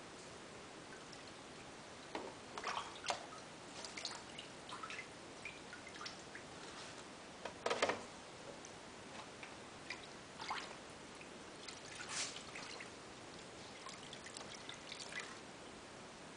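Developer solution splashing and dripping in a tray as a photosensitive PCB is agitated during development: irregular small splashes and drips, the loudest about eight seconds in.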